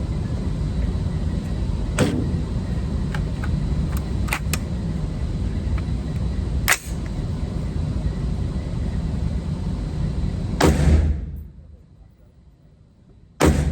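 Single shots from an AR-15-type rifle a few seconds apart, the rifle being test-fired after a bolt carrier exchange to cure a bolt malfunction. The last two shots are the loudest. Under them is a steady rushing noise that drops away about eleven seconds in.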